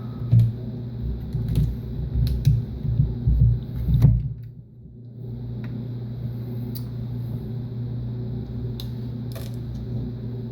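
Hand-disassembly of a plastic heat gun: irregular knocks, bumps and sharp clicks of parts and a screwdriver being handled, busiest in the first few seconds, over a steady low hum.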